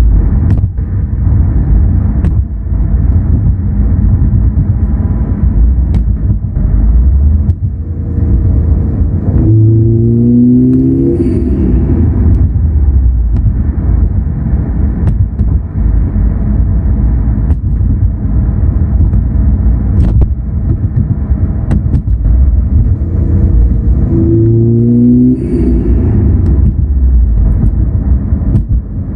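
2016 Subaru WRX STI's turbocharged flat-four engine running under a heavy, steady low rumble, with the engine pitch rising twice as it accelerates, about ten seconds in and again near the end.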